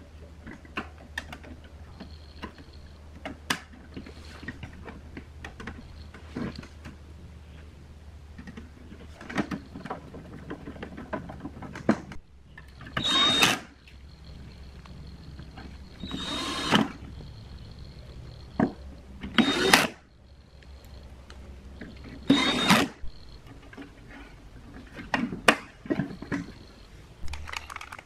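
Small metal clicks and knocks as a steel amplifier chassis and its perforated back panel are handled and fitted together. About four louder, harsher bursts of under a second each come in the second half.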